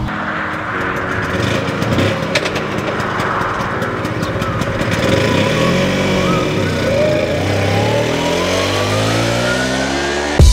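Piaggio Ape three-wheeler's small engine running and pulling away, its pitch climbing steadily as it accelerates over the second half. There are scattered clicks in the first few seconds.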